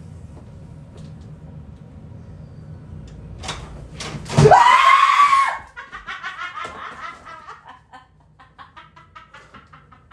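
A short knock, then about four and a half seconds in a loud shriek of fright lasting about a second, as a leaping cat startles a man. It is followed by several seconds of pulsing laughter that fades away.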